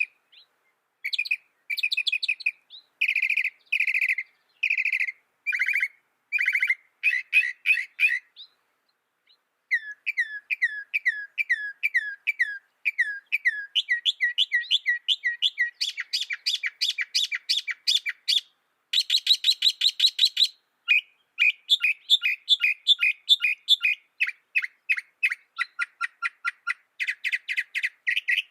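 Mockingbird singing: a long string of varied phrases, each note type repeated several times before switching, from buzzy notes to a series of quick downslurred whistles and fast chattering runs, with a brief pause about nine seconds in.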